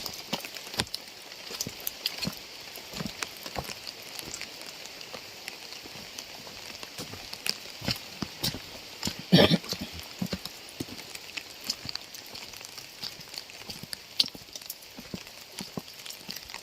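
Rain falling, a steady hiss with many separate large drops tapping irregularly on a hard surface. A single louder impact comes about nine seconds in.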